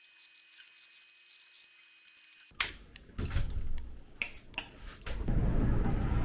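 Faint clicking of computer keyboard keys being typed. About two and a half seconds in it changes abruptly to cloth rustling and knocks against the camera's microphone as it is carried against a shirt, then from about five seconds in a steady loud rushing noise.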